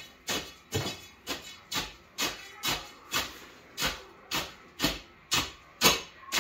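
A hand tool driven again and again into gravel, packing the stone around a sump basin: short crunching strokes at a steady pace of about two a second.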